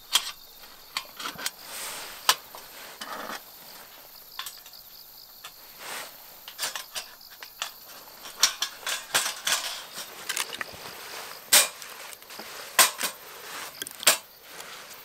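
Scattered sharp clicks and light metal clinks of a small camping fire pit being handled and set up. They come more often and louder in the second half.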